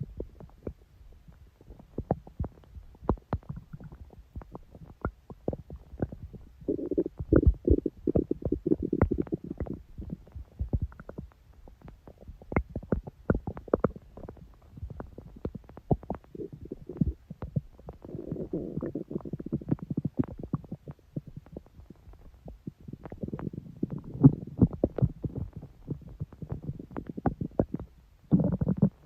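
A human stomach growling and gurgling: a steady run of small pops and clicks, with longer low rumbles about seven seconds in, again around eighteen seconds, and once more in the last third.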